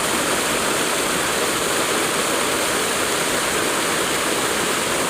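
Rushing river water, a steady hiss of flowing water.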